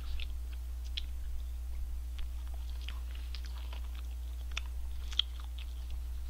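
A man chewing food: scattered soft mouth clicks and smacks, over a steady low electrical hum.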